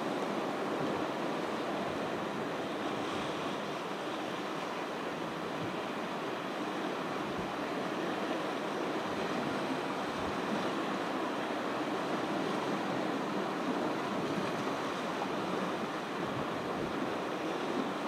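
Ocean surf washing onto a beach: a steady rush of waves.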